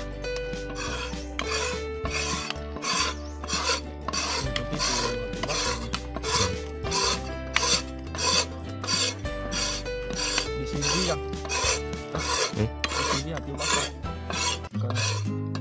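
A spoon stirring and scraping through minced snake meat, chopped betel leaves and raw eggs in a stainless steel pot, in regular rasping strokes about one and a half a second.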